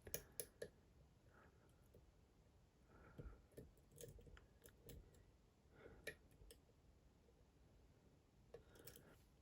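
Faint, scattered clicks and light scrapes of a lock pick working the pins of a Dom IX Twinstar lock, with a quick run of clicks in the first second.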